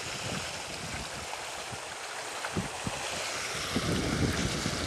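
Sea water washing with wind rumbling on the microphone, the wind gusts getting stronger near the end.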